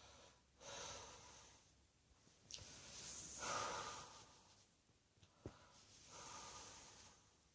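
A person's faint, slow breathing: three drawn breaths, the middle one the loudest, with a couple of small clicks between them.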